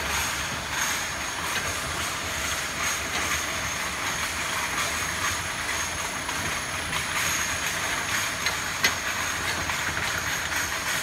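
A rotary glass-bottle washing machine running steadily: a continuous mechanical clatter of small clicks over a hiss, with a thin high whine and one sharper click near the end.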